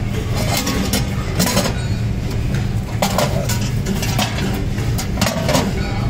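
Metal pots and kettles clinking and clanking as they are handled and set down on concrete, a few sharp strikes over a steady low machine hum.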